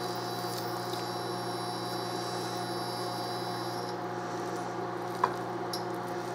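Countertop induction cooktop humming with a thin high whine as it heats an empty steel pan. The whine cuts off about four seconds in while the hum carries on, and there is a single click near the end.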